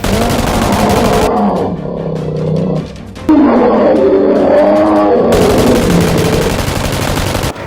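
Two long, loud monster roars, a film creature sound effect: the first lasts nearly three seconds, and the second, louder one starts about three seconds in and runs about four seconds.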